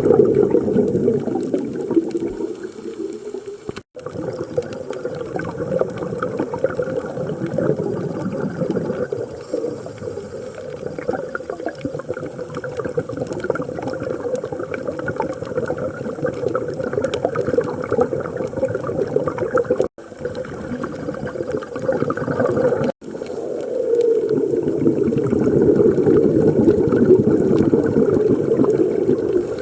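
A scuba diver breathing through a regulator underwater, the exhaled bubbles gurgling loudly in surges. The sound cuts off abruptly three times, at about 4, 20 and 23 seconds.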